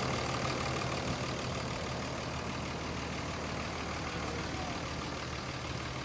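A truck engine idling steadily, with wind noise on the microphone.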